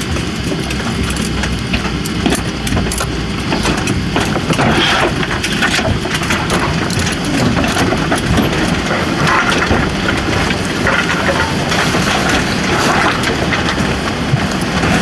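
Airliner cabin noise while taxiing after landing: a steady low rumble from the idling jet engines and the rolling aircraft, with many small clicks over it.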